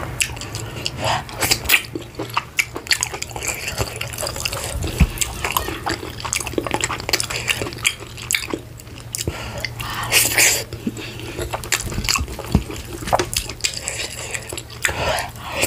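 Close-miked wet chewing and lip-smacking of a person eating vegetable soup with meat by hand: a run of irregular sticky clicks and squelches.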